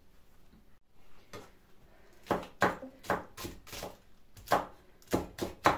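Knife chopping peppers by hand on a cutting board: a run of sharp chops, about three a second, starting a little over two seconds in after a couple of soft knocks.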